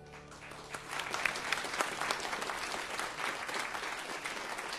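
Audience applauding. The clapping builds up over the first second as the last note of the song's accompaniment dies away, then carries on at an even strength.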